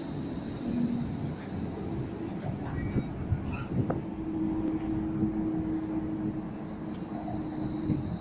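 Melbourne trams running on street track: steel wheels rumbling on the rails, with a thin high wheel squeal for the first few seconds. After a sharp click about four seconds in, a steady low hum runs under the rumble.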